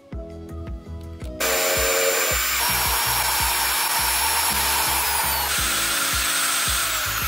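Corded electric drill running at speed, spinning a small PVC part while hand-held sandpaper sands it: a steady motor whine over a rasping hiss. It starts suddenly about a second and a half in, over background music with a beat.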